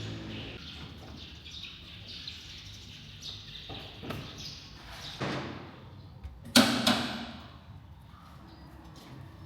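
Scattered knocks and clanks of metal parts and tools being handled, the loudest a pair of ringing clanks about two-thirds of the way through.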